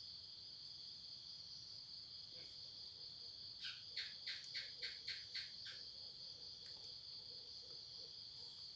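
Insects chirring steadily in a high, even drone. Near the middle comes a quick run of about seven short sharp sounds, about three a second.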